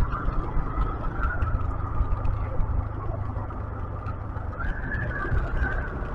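Wind rushing over the microphone on a moving motorcycle, a steady low rumble, with a wavering higher drone from the bike underneath.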